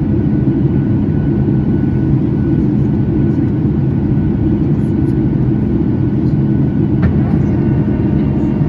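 Cabin noise inside a Boeing 737 MAX in flight: the steady low roar of its CFM LEAP-1B turbofan engines and the rushing air, with a faint steady whine above it.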